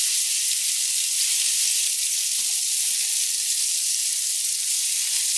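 Thin, floured chicken breasts sizzling steadily as they pan-fry in hot butter and olive oil and are turned over with tongs.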